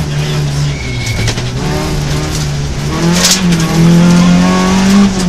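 Rally car engine heard from inside the cabin on a gravel stage: the revs drop briefly about a second in, then climb and hold high and loud from about three seconds in as the car accelerates. A short loud rattle, gravel striking the car, comes just after the revs rise.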